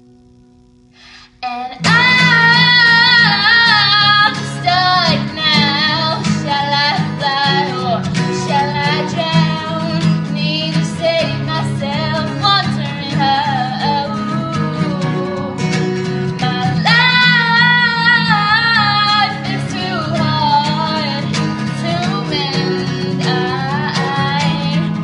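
A woman singing loudly over guitar accompaniment, holding notes with vibrato. After a brief hush, voice and guitar come in strongly about two seconds in.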